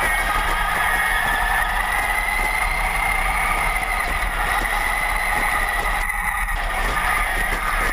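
Traxxas Summit 4x4 RC truck's electric motor and gearing whining steadily, the pitch drifting up and down a little with the throttle, heard close up from the truck's onboard camera.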